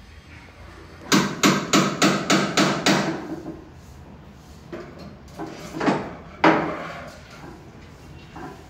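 Hammer striking wood: a quick run of about seven blows, about three a second, then a few scattered knocks, the sharpest one about two-thirds of the way through.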